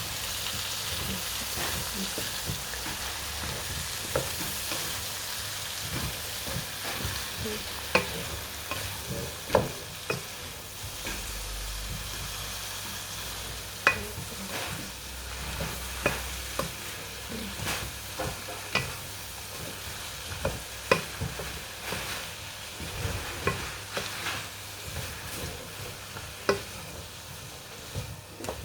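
Aloo gobi (potatoes and cauliflower with spices) frying in a pan, with a steady sizzle, while a spoon stirs it. The spoon knocks and scrapes against the pan again and again.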